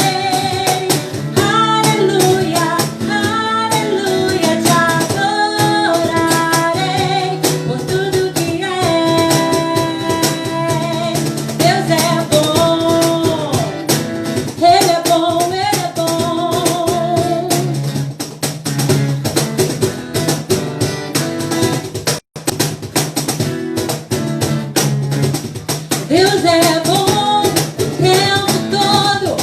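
Worship song: a voice singing over guitar with drums. The sound cuts out for an instant about three-quarters of the way through.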